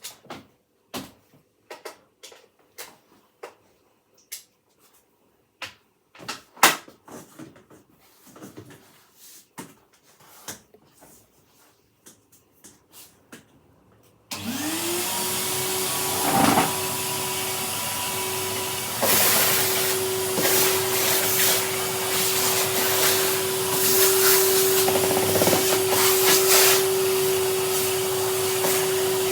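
Scattered clicks and knocks of handling for about the first half, then a vacuum cleaner switched on about halfway through: its motor quickly rises in pitch and settles into a steady whine, with several surges of rushing air as the crevice tool is worked over the armchair.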